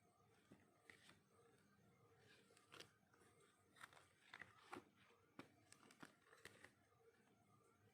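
Faint handling noises while unboxing: scattered light clicks and soft rustles of packaging and printed items being moved and turned.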